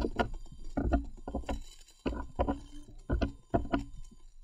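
Calculator keys being pressed one after another, a quick irregular run of plastic taps and clicks as an expression is keyed in.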